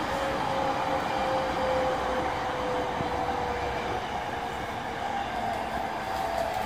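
E231 series 1000 electric train's VVVF inverter and traction motors whining under the floor over steady wheel and rail noise, the whine's tones gliding slowly down in pitch as the train slows.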